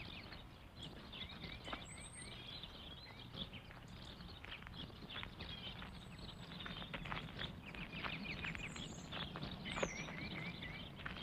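Faint birds chirping in quick repeated runs, about a second in and again near the end, with scattered short high chirps and a low steady hum underneath.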